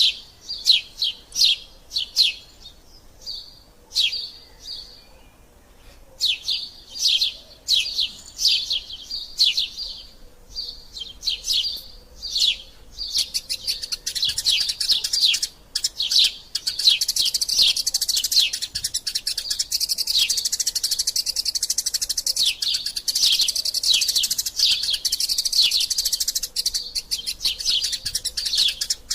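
Eurasian tree sparrows chirping in the excited chatter of squabbling birds: short, sharp chirps repeated in quick runs, then from about halfway a dense, unbroken chattering of many overlapping chirps.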